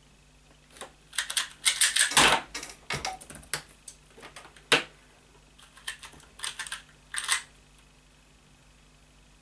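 Rapid plastic clicking and clacking of a magnetic Qiyi Wuxia 2x2 speed cube being turned fast in a speedsolve, a dense run of turns for about two and a half seconds. A single sharp tap follows, then a few short bursts of clicks near the end.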